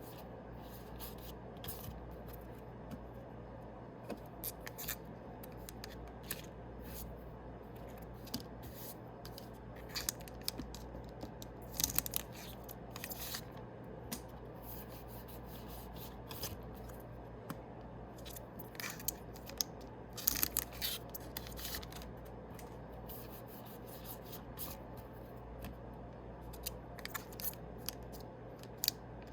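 Foil trading-card booster packs being opened and the cards handled: irregular crisp crinkles, snaps and rustles, busiest about twelve and twenty seconds in, over a low steady hum.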